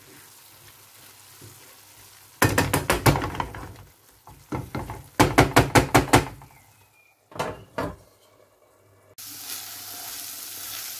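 Wooden spatula stirring and scraping chicken and onion filling around a frying pan, in two quick runs of strokes and a shorter third. About nine seconds in, a steady sizzle of the filling frying starts as its liquid cooks off.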